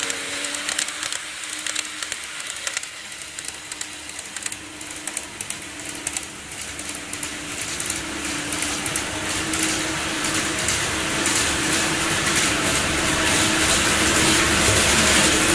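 N-gauge model electric train running on model track: rapid clicking of wheels over the rail joints over a steady motor hum. The sound drops a few seconds in as the train moves away, then builds again toward the end.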